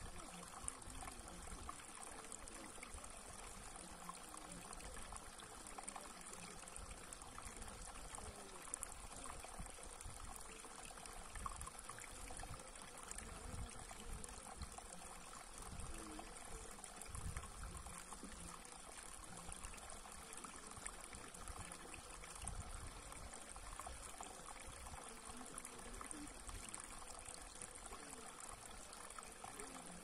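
Shallow water trickling over a smooth rock channel and spilling into a still pool: a steady, quiet running-water sound full of small splashes and gurgles.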